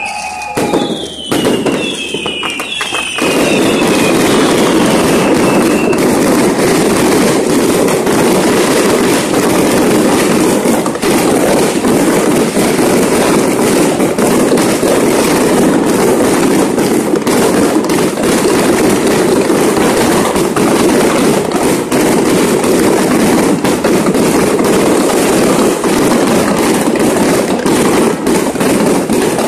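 Fireworks display: a few bangs and falling whistles from rockets, then from about three seconds in a dense, continuous crackle of firecrackers and crackling fireworks that holds steady and loud.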